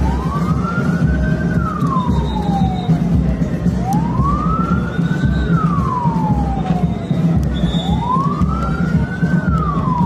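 A siren wailing, its pitch rising quickly and then falling more slowly about every four seconds, three times over, above a steady low hum.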